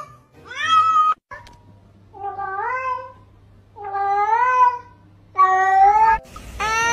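Domestic cats meowing: four drawn-out meows of about a second each, each rising in pitch and then levelling off, the last three coming about a second and a half apart.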